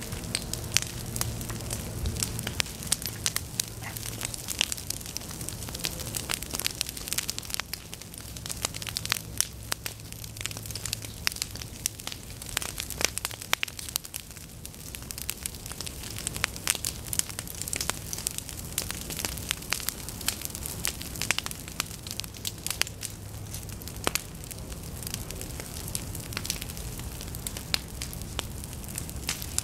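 Prescribed prairie fire crackling through dry goldenrod and other tall prairie stalks: a dense, irregular run of sharp pops and snaps, over a low steady hum.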